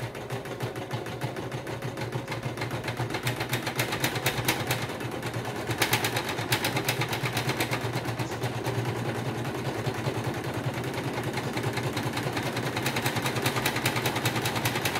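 Singer Quantum Stylist EM200 computerized embroidery machine stitching a design at speed: a fast, even patter of needle strokes over a low motor hum.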